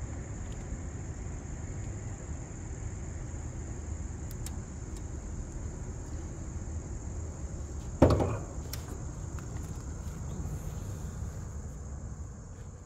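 Insects trilling steadily over a low, steady rumble, with one sharp knock about eight seconds in.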